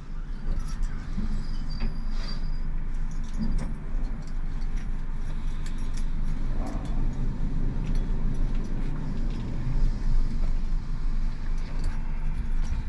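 Passenger elevator car in motion, heard from inside the car: a steady low rumble and hum with a few faint ticks and rattles.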